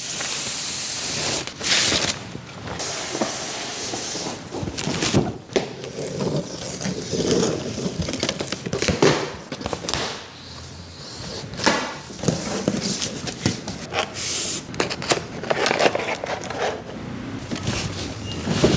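Unboxing handling noise: packaging and a large speaker box being moved and opened, with irregular rustling and scraping and scattered knocks.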